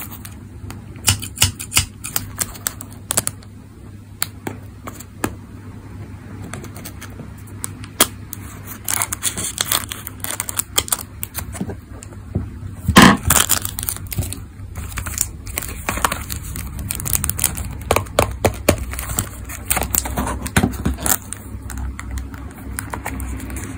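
Hands handling a small paperboard Tomica box and picking at the clear plastic tape sealing its end flap: scattered clicks, crinkles and tearing, with one louder clatter about thirteen seconds in.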